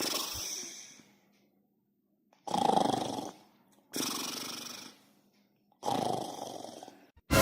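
A man snoring loudly, one long snore about every second and a half.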